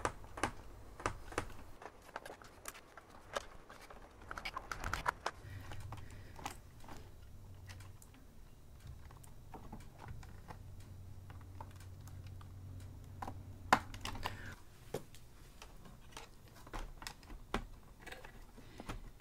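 Irregular light clicks and taps of computer parts being handled as the iMac's video card, on its metal bracket, is picked up and set into place on the logic board, with one sharper click about fourteen seconds in. A faint low hum runs under the middle of it.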